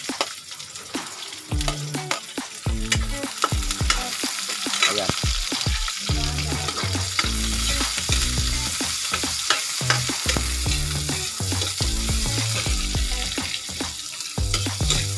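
Sliced onions sizzling in hot oil in a wok, with a metal ladle scraping and clicking against the pan as they are stirred.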